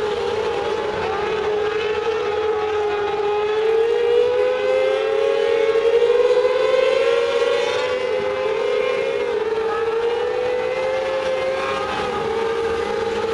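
Several mini sprint race cars running laps on a dirt oval, their engines held at a high, steady whine. The pitch rises and falls gently as they go through the turns. The overlapping engines are loudest about six seconds in, as the pack passes closest.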